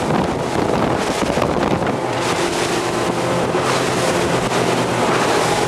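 Motorboat under way over open water: a steady rush of engine and water noise, with wind on the microphone.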